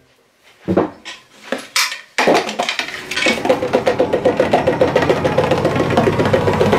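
Drum roll played by hand on a pair of bongos: a few separate knocks, then from about two seconds in a fast, steady run of hand strikes that keeps going.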